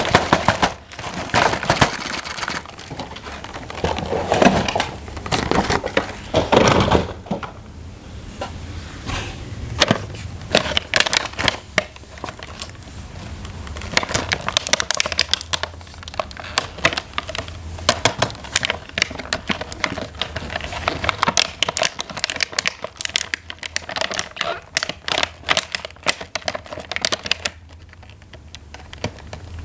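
Plastic toy packaging crinkling and plastic toy parts being handled, with many sharp clicks and crackles. It goes quieter briefly near the end.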